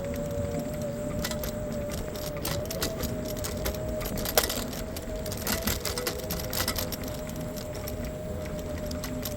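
Speedway Mini 4 Pro electric scooter riding along: the motor gives a steady whine over low road and wind rumble, with loose rattles and clicks as it goes over bumps, one sharp click about four seconds in.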